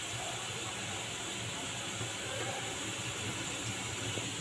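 Steady, even hiss of food cooking on the stove: onions frying in oil in a pan beside a pot of spiced water heating for rice.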